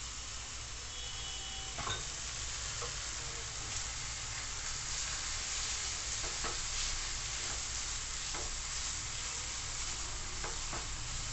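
Chhana and green peas sizzling with a steady hiss in a non-stick frying pan while a spatula stirs through them, with a few short scrapes against the pan.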